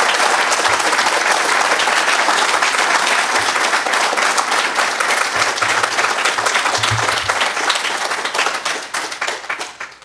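Audience applauding, a dense round of clapping that thins out and dies away near the end.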